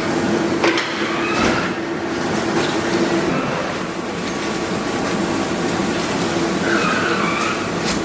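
Kimchi factory machinery running: a steady hum and clatter with a few short squeals and sharp knocks.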